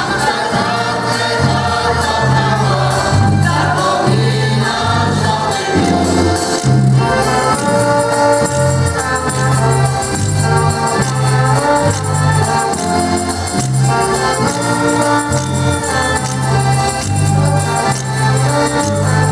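Polish folk ensemble performing a song: a mixed choir singing together to accordion accompaniment, over a steady alternating bass line.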